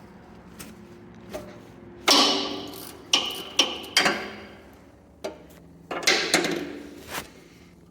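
Metal tool clanking and knocking on the excavator's steel underside as a wrench is worked onto the oil drain plug: several sharp hits with short ringing tails, the loudest about two seconds in.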